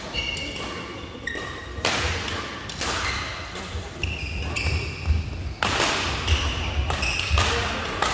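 Court shoes squeaking on a badminton court floor, short squeaks in clusters, with several sharp knocks and low footstep thuds echoing in a large hall.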